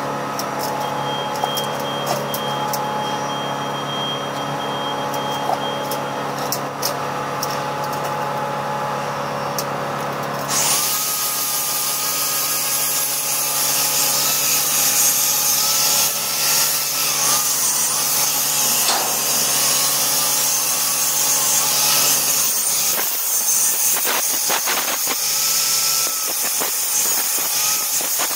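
Angle grinder switching on about ten seconds in and grinding on the end of a steel pipe, a loud hiss with a whine that wavers as the disc is loaded. Before it, a steady machinery hum with scattered clicks.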